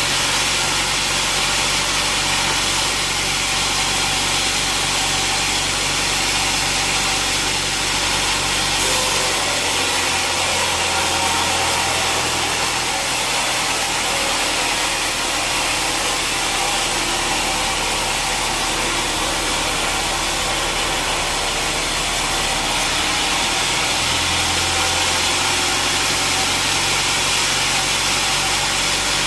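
Sawmill machinery running steadily: a constant motor hum under a loud, even hiss, with no breaks or knocks.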